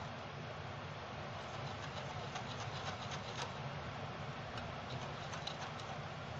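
Wire whisk stirring gram flour and water into a thick batter in a bowl: a steady, soft swishing and scraping, with a few faint clicks of the whisk against the bowl.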